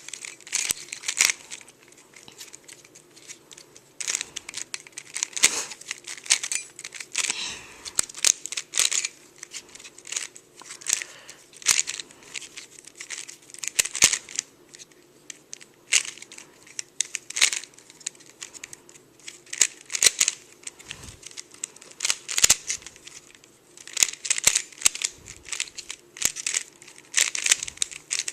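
Dayan GuHong 3x3x3 speed cube being turned by hand: bursts of quick plastic clicks and rasping as the layers are turned, broken by short pauses between move sequences.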